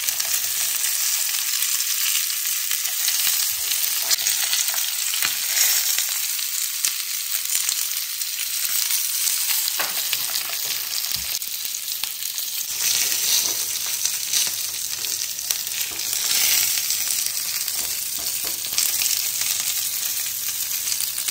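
Corn-on-the-cob wedges frying in oil in a nonstick pan: a steady sizzle with scattered sharp pops as the kernels burst in the heat.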